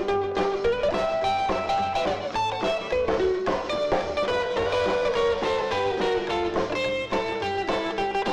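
Rockabilly song in an instrumental break: a lead guitar plays a run of notes over a steady drum beat and bass.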